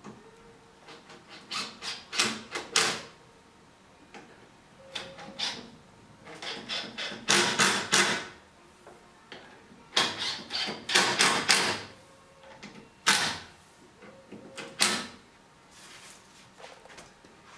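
Irregular clicks, knocks and scrapes of hand work on a birch cabinet as hardware is fitted to its side with a screwdriver and the cabinet is handled, coming in short clusters of sharp sounds.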